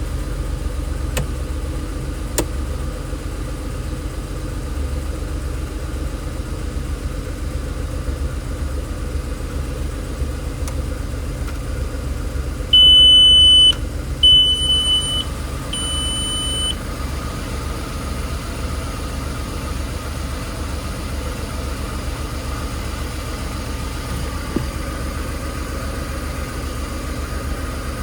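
VW Polo 9N engine idling steadily. About 13 seconds in, three high electronic beeps sound, each about a second long.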